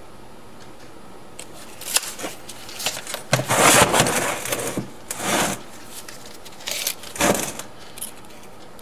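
An electric motor and a gear reducer being handled and shifted about on a metal workbench: scattered clicks and knocks with several scraping, clattering bursts. The longest and loudest of these comes about three to five seconds in, with shorter ones around five and seven seconds in.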